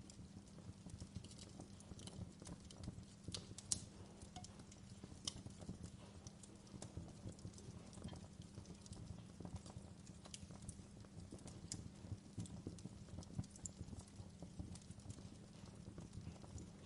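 Wood fire burning in a fireplace: a soft low rumble with frequent irregular crackles and a few sharper pops.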